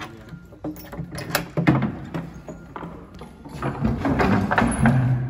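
Keys and a padlock clicking and clinking as the lock is taken off the metal hasp of old wooden double doors. A louder, wavering sound sets in about three and a half seconds in as the doors are opened.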